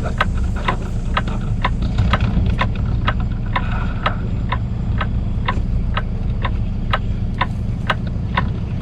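A truck's turn signal ticking steadily, about two clicks a second, over the low, steady running of the truck's engine as it creeps through a sharp turn.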